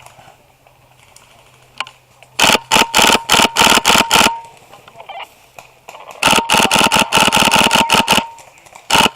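Airsoft gun firing close by: two long strings of rapid shots, about 2.5 and 6 seconds in, with a steady whine under each string. Another string starts just before the end.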